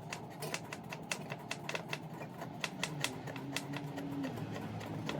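Diesel workshop heater ticking with rapid light clicks over a low hum; the hum steps up in pitch about three seconds in.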